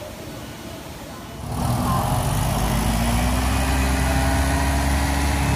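Motorbike engine idling steadily at close range, loud and even with no revving. The first second and a half holds only quieter street noise.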